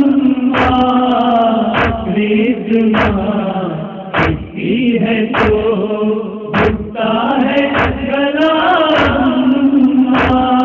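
Mourners chanting a noha refrain together in long held notes. Matam chest-beating strikes land on a steady beat about every 1.2 seconds.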